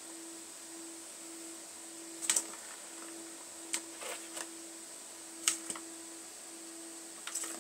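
Kitten batting a ball around a plastic circular track cat toy: about half a dozen sharp clacks of paw and ball against the plastic, the loudest about two seconds and five and a half seconds in, over a faint hum that pulses about twice a second.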